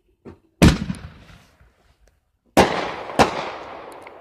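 Fireworks going off: a loud bang about half a second in, then two more close together about half a second apart near the end. Each bang trails off in a fading hiss.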